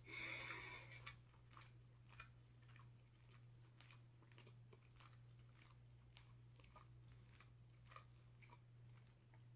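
Faint chewing: soft, irregular mouth clicks, with a short breathy sound in the first second and a low steady hum underneath.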